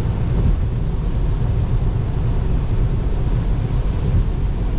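Steady road and rain noise inside a Tesla Model 3's cabin at 75 mph on a wet highway in heavy rain: tyres on standing water and rain on the car, heard as a deep, even rumble with a hiss above it.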